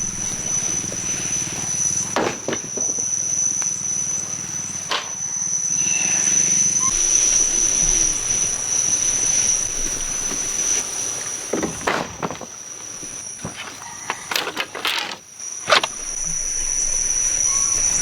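Steady high-pitched insect drone, with several sharp knocks scattered through it.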